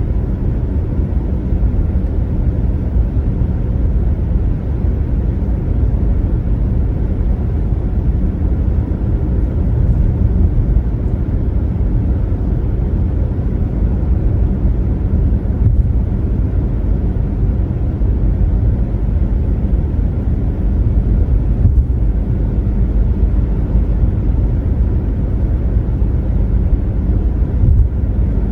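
Car driving at highway speed: a steady low rumble of tyre and road noise that holds even throughout.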